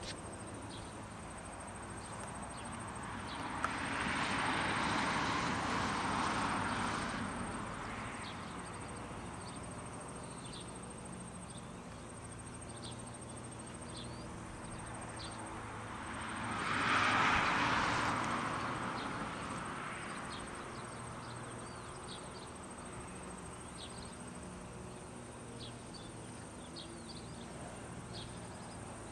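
Outdoor street ambience with a steady high insect chirping and scattered faint ticks. Twice a rolling noise of wheels on asphalt swells up and fades over a few seconds, the second time louder.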